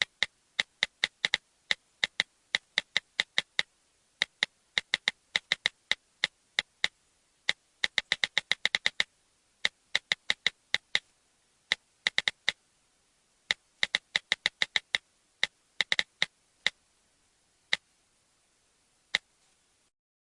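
An iPad button being clicked over and over: sharp, short clicks in irregular runs, at times several a second, thinning out toward the end with a last click near the end.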